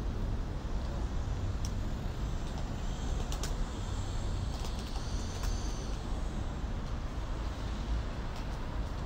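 Steady city street traffic: cars and buses rumbling past on a busy boulevard. A faint high-pitched whine comes in partway through.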